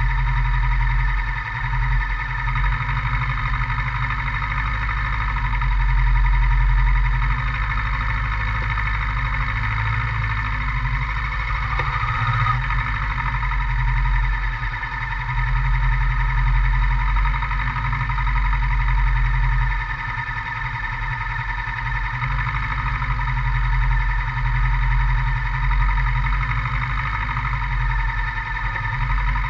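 Kawasaki Versys 650's parallel-twin engine running at a fairly steady speed under riding, with a steady whine over it. The low end dips briefly near the start and around two-thirds of the way through, then swells again.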